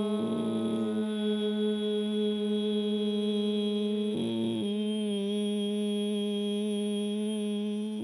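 A woman's voice chanting a long hum into a microphone, held at one steady pitch. It changes sound briefly about four seconds in and then holds again.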